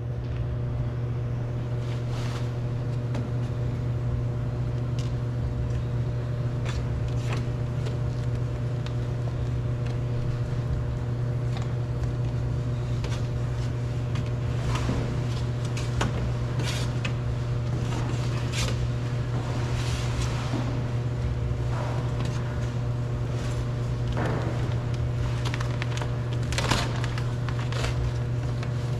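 A steady low mechanical hum runs throughout, with scattered short clicks and plastic rustling as the car door's interior parts and plastic sheet are handled and cut.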